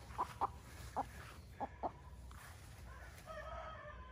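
Chicken clucking in short single notes, then a long drawn-out call that starts about three seconds in and falls in pitch at its end.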